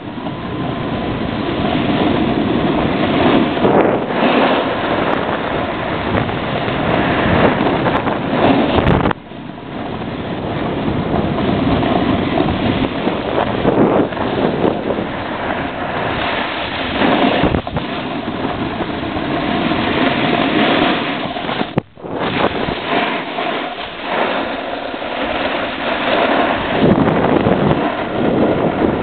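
Snowboard scraping and hissing over warm spring snow while riding downhill, mixed with wind rushing over the microphone. The noise drops out sharply twice, briefly.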